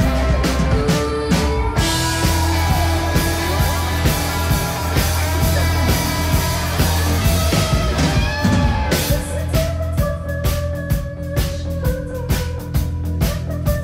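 Live rock band playing: a drum kit beating steadily under electric guitars, bass, keyboards and viola. From about nine seconds in, long held notes ring out over the beat.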